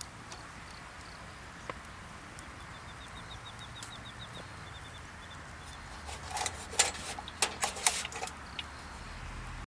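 A faint, quick, high trill from a small bird a few seconds in. Later comes a cluster of sharp clicks and knocks, the loudest sounds, over a steady low outdoor background.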